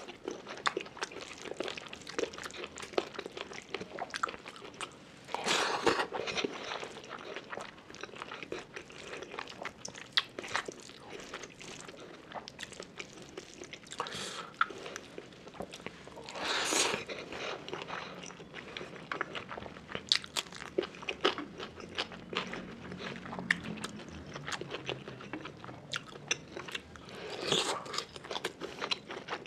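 Close-up eating by hand: rice and curry mixed on the plate with the fingers, then chewed, with many small wet mouth clicks and smacks. Three louder, noisier bursts stand out, one about a fifth of the way in, one a little past the middle, and one near the end.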